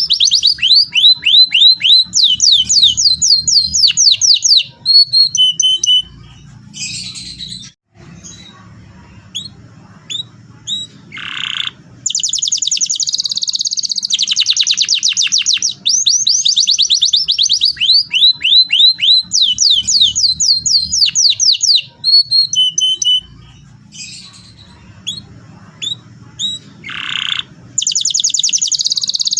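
Domestic canary singing rolling song: long, fast trills of rapidly repeated high notes, with two quieter gaps of a few seconds holding only scattered single notes, about a quarter and three quarters of the way through.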